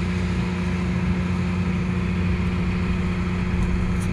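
An engine idling steadily: a constant deep hum that holds one pitch without revving.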